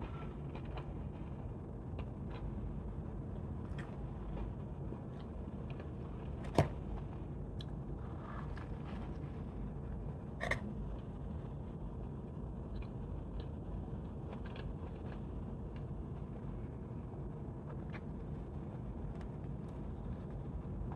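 Quiet eating of a crispy chicken sandwich: faint chewing and handling clicks over a steady low room hum, with a sharper tap about six and a half seconds in and another about ten and a half seconds in.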